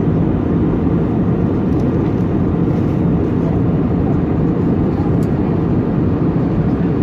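Steady low cabin noise inside an Airbus A320neo in flight: the even roar of the engines and the airflow over the fuselage, unchanging throughout.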